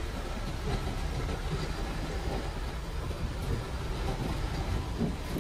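GSRTC AC 2×2 luxury coach on the move: a steady, even rumble of engine and road noise.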